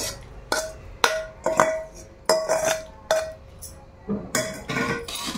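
A spoon knocking and scraping inside a steel bowl to empty fried chana dal into a large steel pot: about ten metallic clinks, each ringing briefly.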